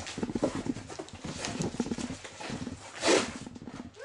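Cardboard shipping box being opened by hand: packing tape and paper pulled off and the flaps lifted, with a rapid rough rustling and a loud rip about three seconds in.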